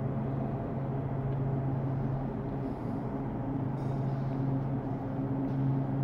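Refrigeration plant of a freezing tunnel running steadily, a constant low machine hum, as the tunnel pulls down toward its -35 °C setpoint.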